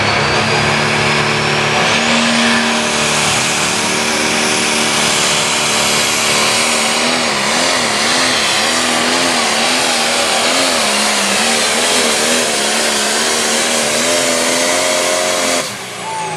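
Turbocharged International light pro stock pulling tractor's diesel engine running flat out while dragging a weight-transfer sled. A high turbo whistle climbs over the first two seconds and then holds. The engine note wavers up and down in the middle of the pull, and the sound drops off sharply shortly before the end.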